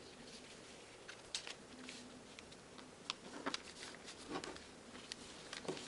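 Faint rustling and scattered soft crisp clicks from a sheet of origami paper being folded by hand and creased flat.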